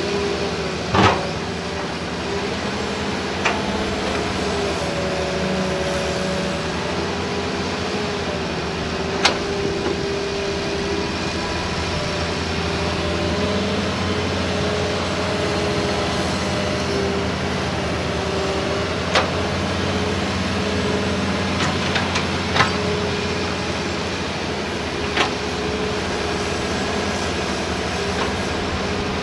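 Hitachi hydraulic excavator digging, its diesel engine running steadily under load with a second excavator working behind it; the engine tones shift in pitch as the boom and bucket move. Sharp knocks sound now and then, irregularly.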